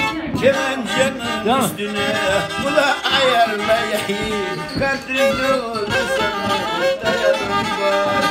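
Black Sea kemençe, a small upright three-stringed fiddle, bowed close up, playing a lively folk melody with a steady drone note sounding under the moving line.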